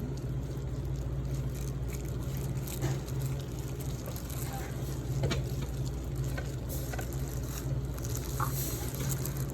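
Steady low hum of room background noise, with a few faint short clicks and taps.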